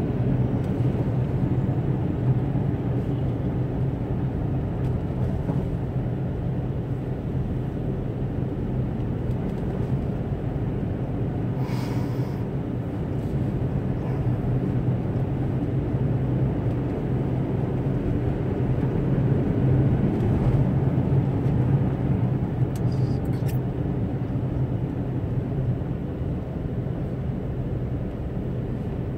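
Car interior noise while driving on a snow-covered road: a steady low rumble of engine and tyres, with a short hiss about twelve seconds in.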